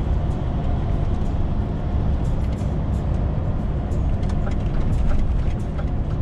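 DAF XF 530's six-cylinder diesel engine and road noise running steadily, heard from inside the truck's cab on the move. Light, evenly spaced ticks come in during the second half.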